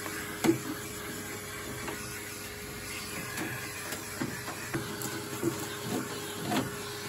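Vacuum cleaner running, a steady hiss with a constant hum, cleaning out the inside of an old spin dryer, with several short knocks along the way.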